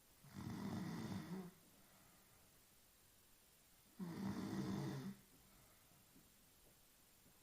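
A woman snoring in her sleep: two snores about three and a half seconds apart, each lasting about a second.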